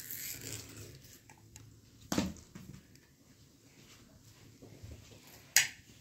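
Two short, sharp knocks about three and a half seconds apart against a quiet background; the second is the louder.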